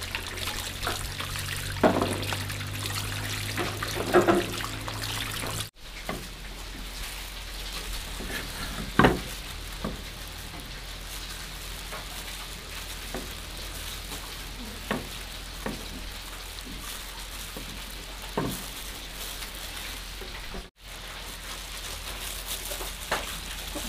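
Wooden spoon stirring a sticky meat filling in a bowl, wet squelching with a couple of knocks on the bowl. Then plastic-gloved hands roll the filling into thin bamboo-shoot slices and handle the slices: soft glove crinkling with light scattered taps and clicks.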